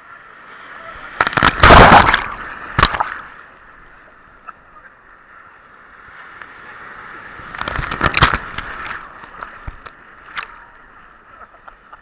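Sea waves breaking in the surf right at the camera, with two loud splashes of water, one about a second and a half in and another about eight seconds in. The wash of the surf runs between them.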